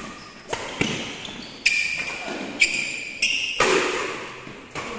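Badminton doubles rally on an indoor court: rackets hitting the shuttlecock about seven times, sharp echoing hits roughly every half second to second. Short high squeaks, typical of shoes on the court floor, follow several of the hits.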